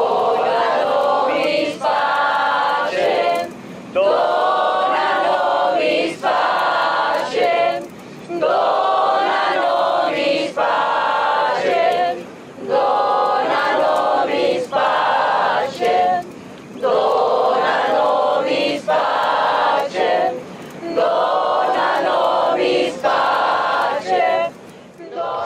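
A group of voices singing a chant together in short phrases of about two seconds each, with brief breaks between them.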